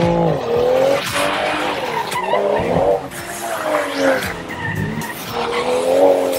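2020 Toyota Supra engine revving up and down as the car drifts, its pitch rising and falling again and again, with the tyres skidding on wet tarmac.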